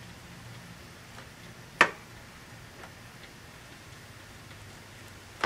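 A single sharp metallic click about two seconds in, with a few faint ticks, from the driveshaft's newly fitted universal joint and yoke being flexed and turned by hand.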